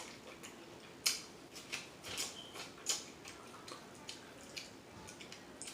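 Close-miked chewing and lip smacking: irregular small wet mouth clicks, the sharpest about a second in and near three seconds.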